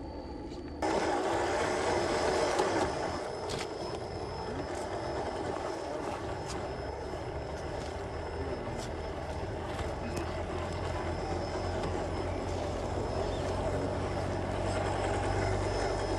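Small electric motor and gear drivetrain of an MN86K RC crawler running steadily as it drives over dirt, with a low hum, a thin high whine and scattered small clicks. The sound jumps louder about a second in.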